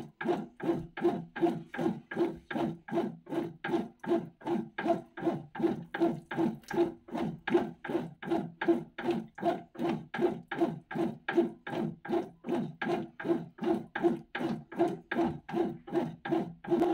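Bread machine kneading a wet, gluten-free dough with its two paddles. The motor hum and the slap and rub of the dough pulse evenly, about two to three times a second.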